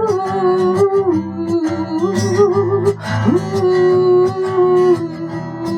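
Instrumental break of a song: acoustic guitar accompaniment under a held lead melody with vibrato, which glides up to a new note about three seconds in.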